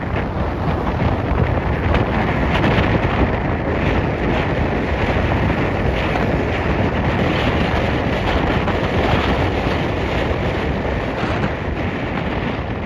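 Steady, heavy wind rushing over the microphone while moving along a road, with a low rumble underneath.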